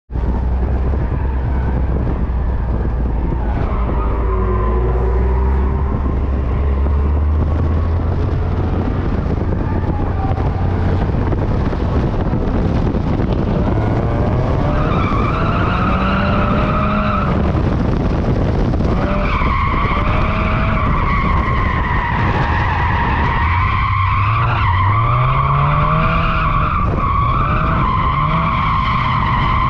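Supercharged Mazda MX-5's four-cylinder engine running low and steady at first, then revving up and down. From about halfway through, the tyres squeal in long, wavering whines as the car drifts.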